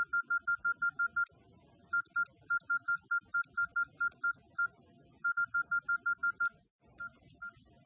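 Mobile phone keypad beeping as keys are typed: short identical high beeps in fast runs of about six a second, broken by pauses, with slower, sparser presses near the end.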